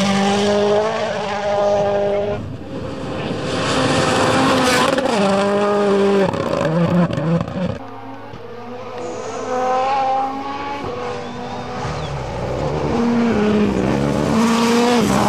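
Rally cars at full throttle on a gravel stage, one after another, engines revving high with the pitch swinging up and down through quick gear changes. The sound drops back about eight seconds in and builds again as another car approaches near the end.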